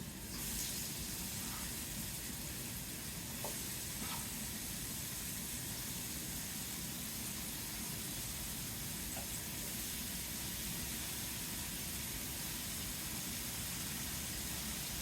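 Sliced pears sizzling steadily in a hot skillet. The sizzle picks up just after the start as they go in, with a couple of faint clicks a few seconds in.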